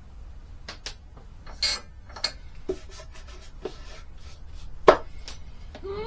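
Tools and small objects being handled at a workbench: scattered clicks and knocks with a couple of short scrapes, the sharpest knock about five seconds in.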